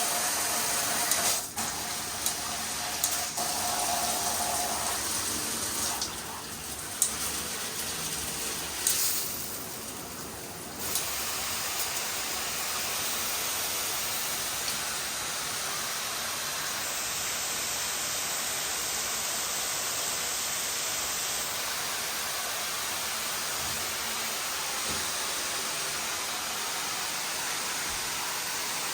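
Water spraying from a filtered shower head, its hiss changing in strength and texture several times in the first ten seconds or so as the spray modes are switched, with a few sharp clicks; then a steady spray.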